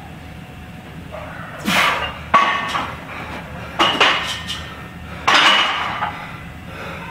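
A lifter's hard, forced breaths during heavy barbell back squats, with metal clanks and clinks from the loaded barbell and iron plates. Four loud bursts come about a second and a half apart, one with a sharp clank.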